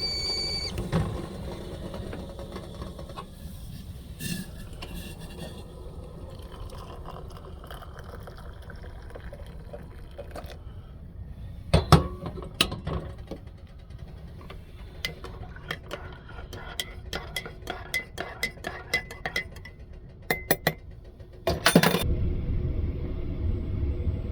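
Light clinking and tapping of dishes and cutlery: scattered clinks, then a quick run of them, ending in a louder clatter near the end, over a steady low rumble that turns louder just after.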